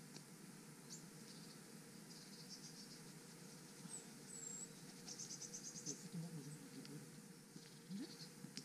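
Faint outdoor nature sound: thin high chirps and a few short, rapid trills come and go over a steady low background rumble.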